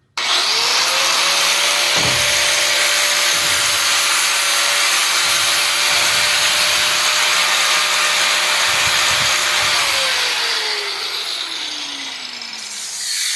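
Angle grinder spinning up and grinding the steel tie rod, a harsh steady whine over grinding noise, to clean the metal for welding. The motor winds down with a falling whine over the last few seconds and then stops.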